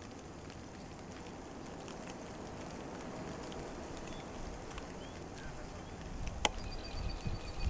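Outdoor ambience: a steady soft hiss with scattered faint clicks. Near the end comes a sharp click, a low rumble on the microphone, and a short, rapid high-pitched trill of about eight notes a second.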